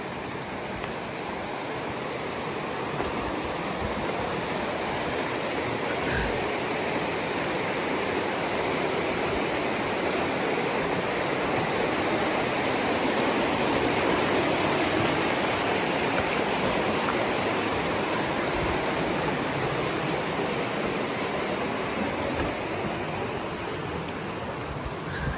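Waterfall pouring, a steady rush of water that swells gradually toward the middle and eases off again near the end.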